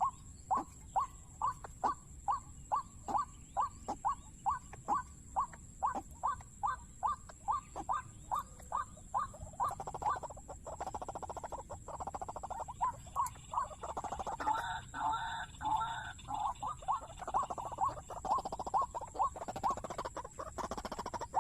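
Waterhen calling: a sharp note repeated about two and a half times a second, turning into denser, overlapping calls about ten seconds in, with a louder burst of calling a few seconds later.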